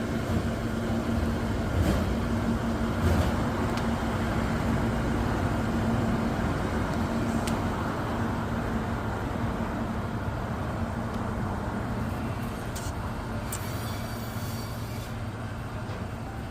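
Steady road-traffic noise with a constant low engine-like hum and a few faint clicks.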